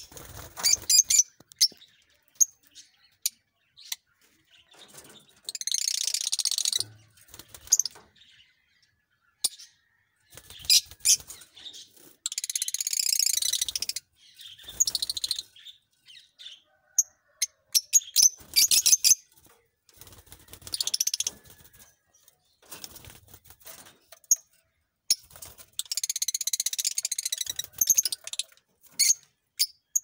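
A flock of Fischer's lovebirds calling: sharp, high single chirps scattered throughout, broken several times by dense, shrill chattering that lasts a second or two.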